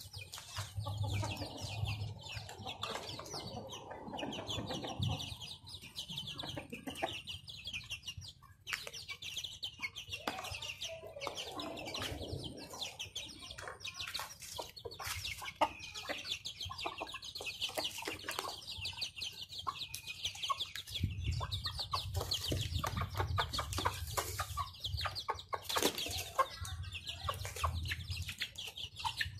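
Chickens clucking softly while pecking at chopped fruit laid on cardboard, with many short, sharp taps.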